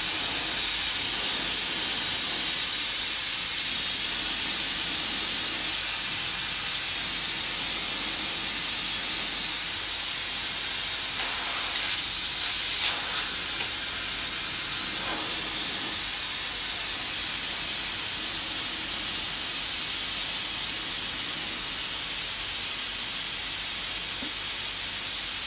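Steam jet hissing steadily from the hand gun of a Eumax 6-bar stainless steel boiler steam cleaner, held open without pause. The low water level warning is on: the boiler is running out of water while the remaining steam blows off.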